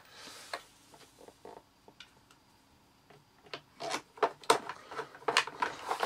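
Clicks and knocks of a long screwdriver working a motor screw into the plastic body of a Hoover Junior vacuum cleaner. They are sparse and faint at first, then come as a quick run of sharper clicks from about three and a half seconds in.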